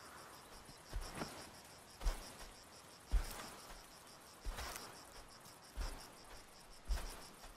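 Crickets chirping in a steady, rapid, even pulse, with soft low thumps about once a second.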